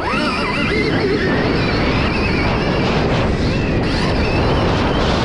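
Stark Varg electric dirt bike accelerating hard down a sand track in power mode four. Heavy wind rush on the microphone, with a wavering high whine that rises in the first second.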